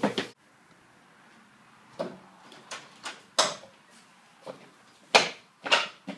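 Door being opened and handled: a run of irregular knocks and clatters, about seven in all, the loudest about three and a half and five seconds in.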